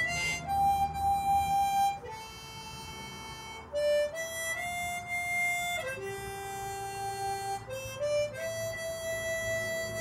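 Harmonica played solo: a slow melody of long held single notes, each lasting a second or two before stepping to the next pitch.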